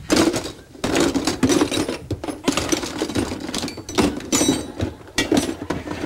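A locksmith's tool bag being rummaged through: metal tools and gear clink, rattle and clatter in quick, irregular bursts.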